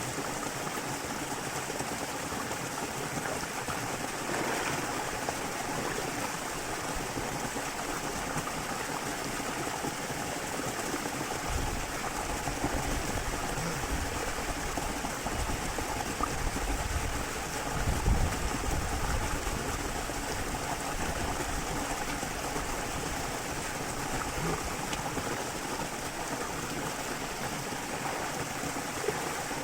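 Small waterfall pouring into a river, a steady rush of flowing water, with a few low rumbles partway through, the loudest about eighteen seconds in.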